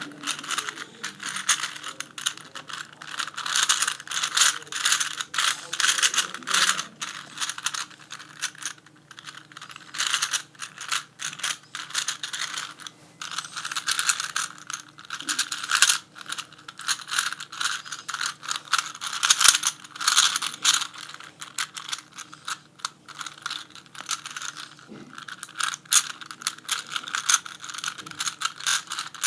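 A loosely tensioned plastic Rubik's cube being turned fast by hand during a solve: rapid runs of clinky clicking and clacking as the layers snap round, in bursts of a few seconds with short pauses between them.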